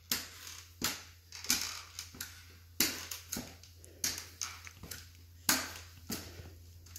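Aluminium underarm crutch tips and shoes knocking on a hardwood floor during a slow crutch walk, in what the walker believes is a four-point gait. The knocks come unevenly, about one to two a second.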